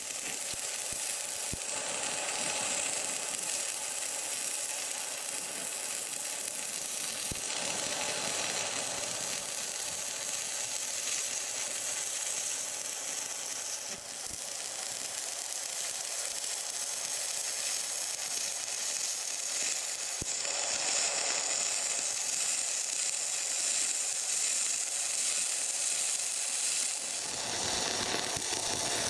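Electric arc welding on steel: a steady crackling sizzle from the arc as a bracket is welded onto the excavator's dipper arm, with a brief break about halfway through before the arc resumes.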